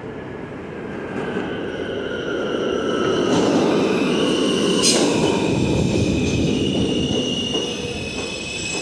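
Subway train pulling into an underground station and braking. The noise of the wheels grows loudest a few seconds in and then eases off, with steady high-pitched squealing and one sharp clank about five seconds in.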